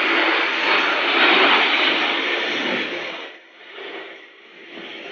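Jet engine noise from a formation of seven Aero L-39 Albatros trainer jets passing overhead, a loud, steady rush that drops off sharply about three seconds in as the jets move away.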